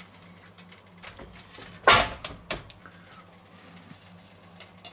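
The hinged lid of an OptiGrill contact grill being shut: one loud clunk about two seconds in, then a couple of lighter clicks.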